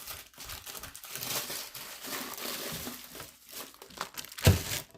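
A thin plastic bag crinkling and rustling as a toilet wax ring is pulled out of it, with a single heavy thump near the end.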